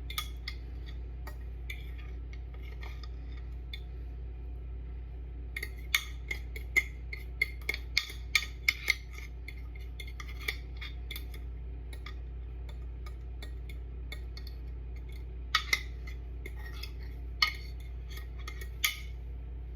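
Sharp clinks and taps of a kitchen utensil against a bowl and griddle, coming in two clusters several seconds apart, over a steady low hum.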